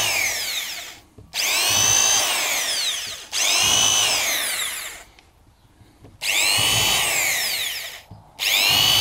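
Electric drill boring pilot holes into a plastic beehive box, run in repeated bursts of one to two seconds. The motor's whine slides down in pitch through each burst, and there is a pause of about a second midway.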